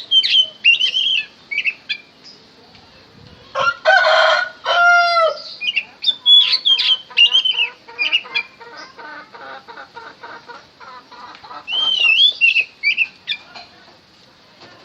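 Oriental magpie-robin (kacer) singing: phrases of short, gliding whistled notes. About four seconds in comes a louder, harsh drawn-out call rich in overtones, and a fast run of repeated notes follows.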